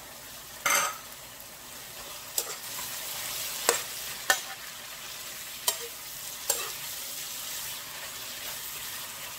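Butterbur stems in a reduced perilla-seed sauce sizzling in a nonstick wok while a metal spoon stirs them. A few sharp clicks and scrapes of the spoon against the pan break through the steady sizzle.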